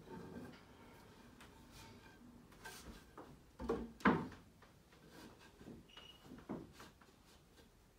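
Scattered knocks and clunks of wooden stand boards being handled and bumped together, with the loudest pair about four seconds in.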